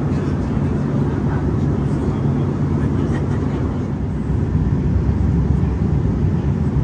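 Steady low rushing cabin noise of an Airbus A340 airliner in flight: engine and airflow noise heard from inside the passenger cabin.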